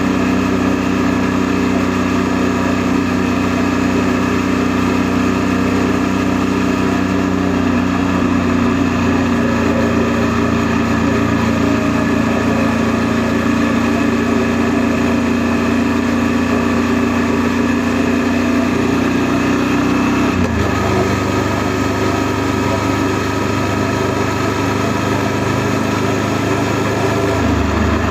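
Honda NC700S motorcycle's parallel-twin engine running steadily under way. Its note changes abruptly about twenty seconds in and again near the end.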